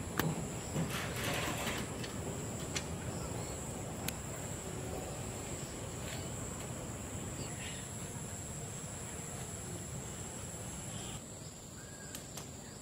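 Outdoor rural ambience dominated by a steady high-pitched drone of insects, part of which drops away near the end, with a few faint clicks about a second in.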